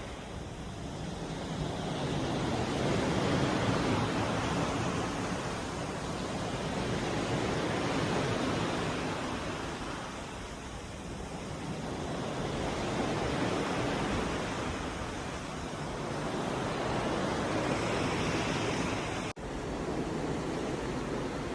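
Ocean water rushing past a cruise ship, with wind. The rush swells and eases about every five seconds and cuts out for an instant near the end.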